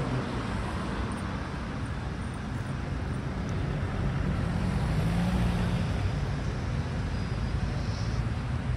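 Road traffic: a steady rumble of cars driving along a city street, swelling a little about halfway through.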